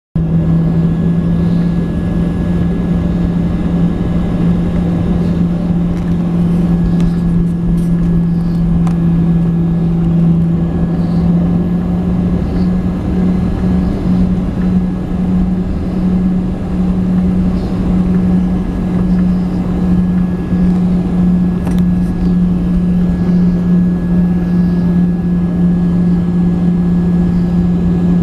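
Cabin noise of a Boeing 737-800's CFM56-7B turbofan engines at takeoff thrust during the climb-out: a loud, steady drone with a constant low hum.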